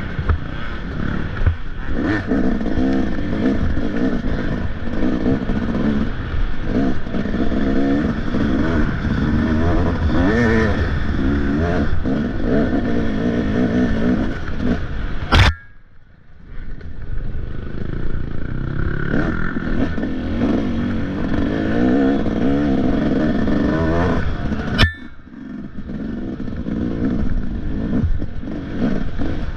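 A motocross dirt bike's engine revving up and down under hard riding. Twice, about halfway through and again later, there is a sharp knock, each followed by a moment when the engine goes quiet.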